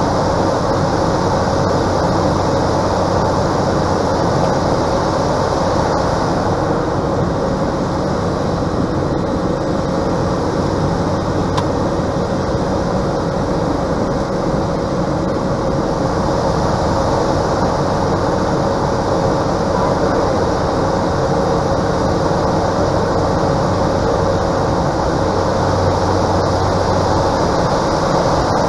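Cessna 208 Caravan's single Pratt & Whitney PT6A turboprop engine and propeller in flight, heard from inside the cockpit: a steady, loud drone with a held mid-pitched tone over rushing air noise.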